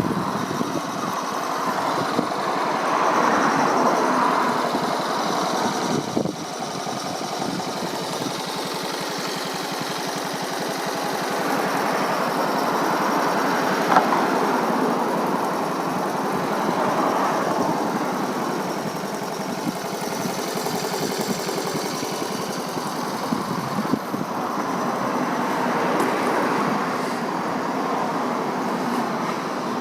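Small engine of a restored 1969 Honda Monkey running, its level swelling and easing several times.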